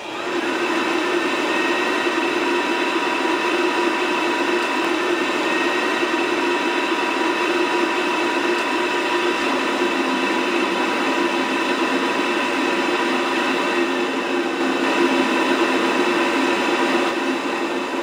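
Gas combi boiler firing up: its combustion fan and burner give a steady whirring rush that steps up sharply at the start and then holds, while the burner lights with a blue flame.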